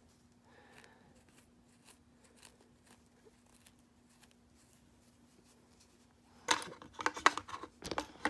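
Faint rustling of hands picking at a knitted sock and its scrap yarn over a faint steady hum. About six and a half seconds in comes a cluster of loud knocks and rattles as the camera is bumped.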